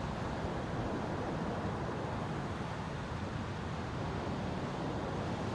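Steady ocean surf and wind, with the wind rumbling on the microphone.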